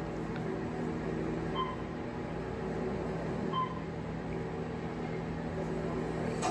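Elevator game audio from a TV speaker: a steady low hum, with two short beeps about two seconds apart.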